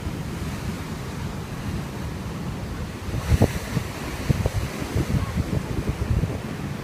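Sea waves washing, with wind buffeting the microphone in low rumbling gusts that grow stronger about three seconds in.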